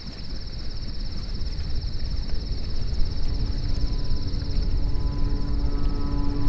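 Night ambience of crickets trilling steadily over a low churning rumble of hot-tub water and jets that fades up over the first couple of seconds. About halfway through, a steady low hum tone comes in under it.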